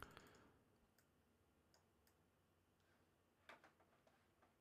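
Near silence broken by a few faint computer mouse clicks: one at the start, a couple around the first two seconds, and a short cluster about three and a half seconds in.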